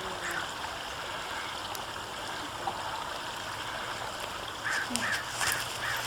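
Steady faint outdoor background hiss, then a bird calling about five times in quick succession near the end.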